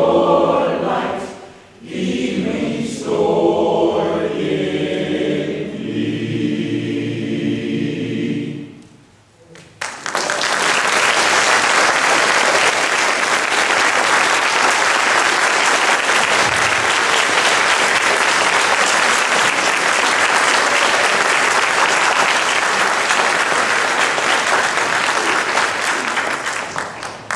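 A choir sings the closing phrases of a piece, ending on a held chord that fades away. After about a second of quiet, the audience breaks into loud, steady applause.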